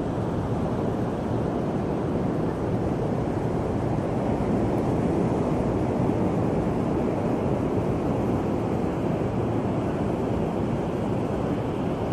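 Ocean surf breaking on a beach, mixed with wind rumbling on the microphone, a steady noise that swells slightly about halfway through.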